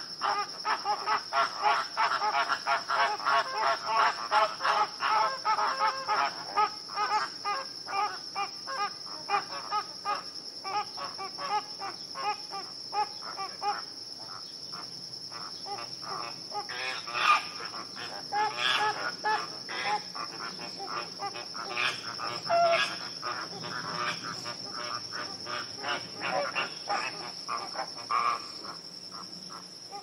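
A large flock of flamingos calling: a dense chatter of many short calls that thins out after about seven seconds, with a few louder single calls later, over a steady high-pitched tone.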